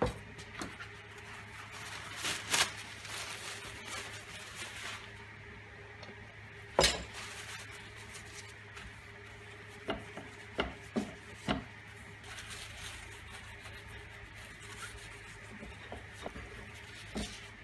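Hand cleaning at a workbench: a tissue rubbing and wiping over a dusty plate, with a scattering of short knocks and clicks from objects being handled and set down, the sharpest about seven seconds in. A steady low hum runs underneath.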